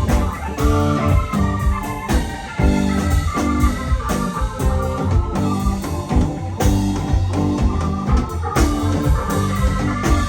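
Live rock band playing an instrumental passage, with an organ to the fore over bass and a steady drum beat.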